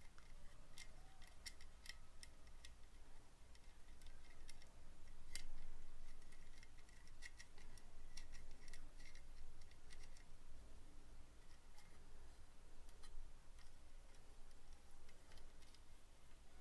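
Faint, irregular small metal clicks and taps as the parts of a soldering iron stand are handled and a nut is fitted onto its bolt.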